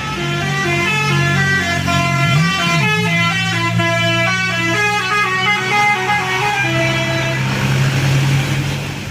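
A tour bus's telolet horn, a set of air trumpets, plays a multi-note tune with several notes sounding at once for about seven seconds. The bus's engine runs steadily underneath.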